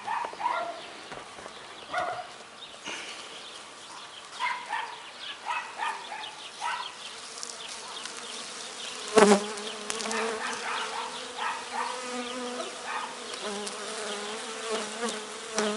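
Agitated honeybees buzzing around an opened hive. From about nine seconds in, one bee hums steadily close by. Plastic film crackles as it is peeled back off the frames, and there is one sharp knock about nine seconds in.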